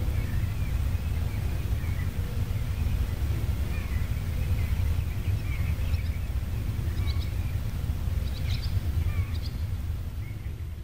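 Scattered short bird chirps and calls over a steady low rumble, with the sound beginning to fade out near the end.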